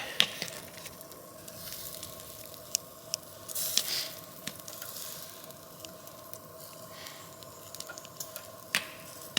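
Pork belly sizzling on a konro charcoal grill, its fat spitting in a steady hiss with scattered sharp crackles and a few louder pops.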